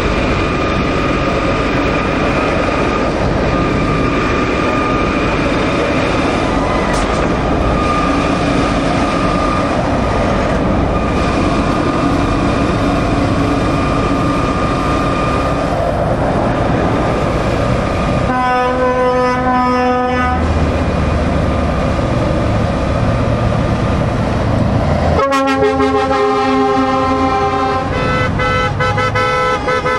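A convoy of lorries passing, with steady diesel engine and tyre noise. About two-thirds through, a truck air horn sounds a chord for about two seconds, and near the end a longer multi-note horn blast starts and carries on, shifting to a different chord.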